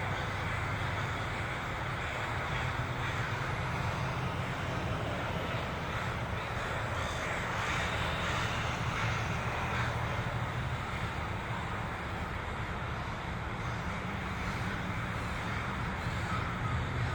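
A huge flock of crows cawing at once, hundreds of overlapping calls merging into one continuous clamour, as they gather at dusk to roost. A steady low rumble runs underneath.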